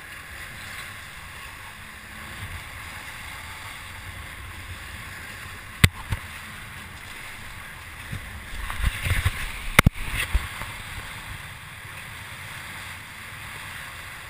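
Hobie catamaran's hulls rushing through choppy water, with wind on the microphone and spray hitting the camera. Two sharp knocks come about six and ten seconds in, with a louder splashing spell around the second.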